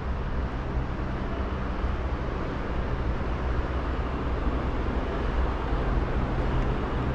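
Steady rumble and hiss of an underground metro station platform, with a low steady hum underneath.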